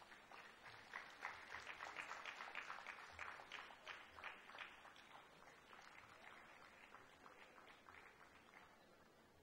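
Audience applauding faintly, the clapping swelling about a second in and tapering off near the end.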